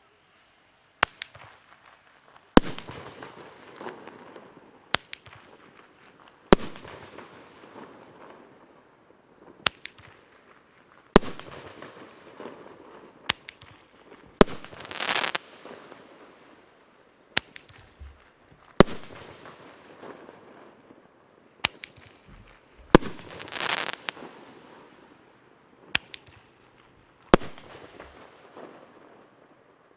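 A 30 mm eight-shot roman candle firing, a shot about every four seconds. Each shot is a sharp launch pop, followed about a second and a half later by the crack of the star breaking in the air, with a long echoing tail. Two of the breaks carry a longer hissing rush.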